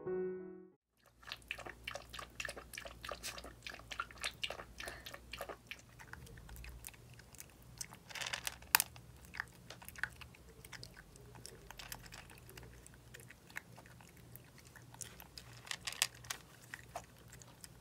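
Two-month-old Jack Russell terrier puppy chewing: quiet, irregular small clicks and crunches that keep going, with louder bites about eight to nine seconds in and again about sixteen seconds in.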